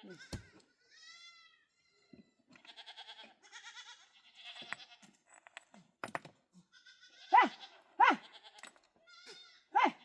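Flock of goats or sheep bleating, many short calls one after another and overlapping, the loudest few near the end. A few sharp knocks sound in between.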